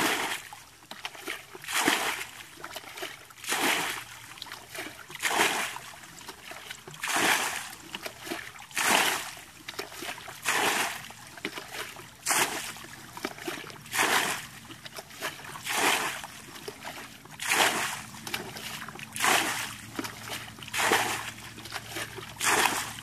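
Muddy ditch water being bailed with a plastic bucket: each scoop flung out lands with a splash, in a steady rhythm of about one every one and a half to two seconds.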